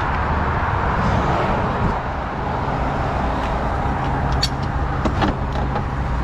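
Steady engine running under motorway traffic noise, with a few short sharp clicks about four and a half and five seconds in.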